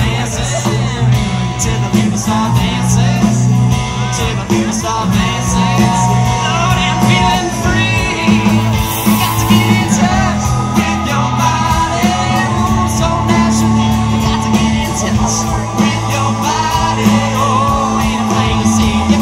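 Live rock band playing electric guitar, bass guitar, drum kit and keyboard, with sung vocals over a steady beat.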